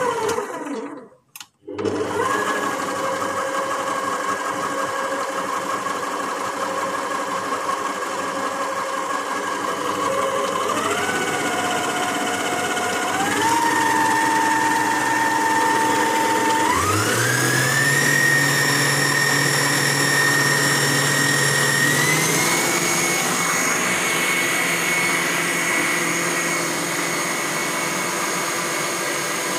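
Electric stand mixer motor ('The Bakers' 6.5-litre) whining steadily after a brief stop about a second in. Its pitch steps up about four times as the speed knob is turned to higher settings.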